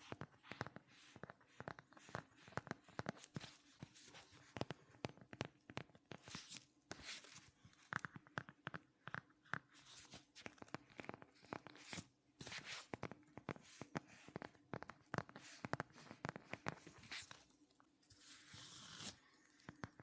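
Phone cases tapped and clicked by fingers right at the microphone: quick, irregular sharp clicks. A short scratchy rubbing comes near the end.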